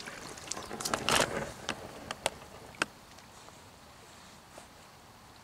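A few sharp clicks and a short rustling swish of fly-fishing gear being handled during the first three seconds, then the faint steady wash of a shallow stream.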